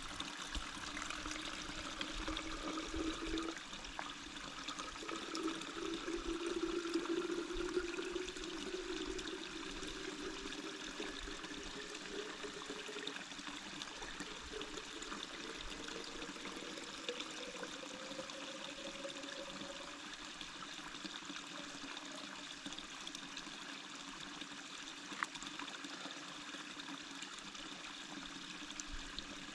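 Water trickling and gurgling while a Katadyn BeFree 1-litre filter flask is filled, with a tone that rises slowly in pitch as it fills.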